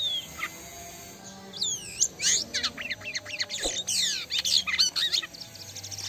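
A caged jalak kapas starling singing a fast, varied run of whistles, chirps and sweeping notes, loudest in the middle, with one short knock partway through.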